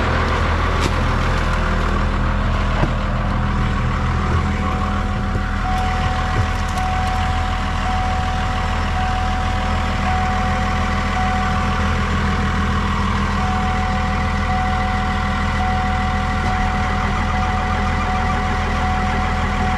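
Truck engine running steadily. From about six seconds in, a high tone sounds with short breaks about once a second.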